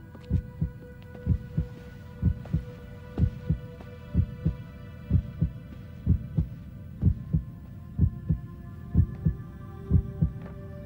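A slow heartbeat, a pair of low thumps about once a second, over a faint steady hum of held tones.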